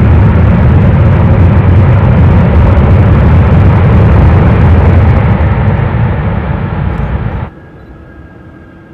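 C-17 Globemaster III's four turbofan engines, a loud, distorted jet roar that cuts off abruptly about seven and a half seconds in, leaving a faint steady high whine.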